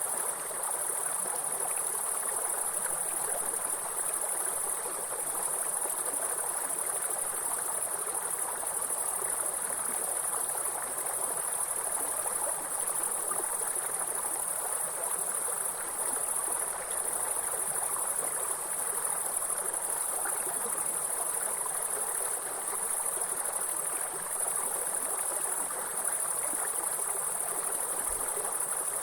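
A steady, high-pitched chorus of insects trilling over the even rush of a flowing stream.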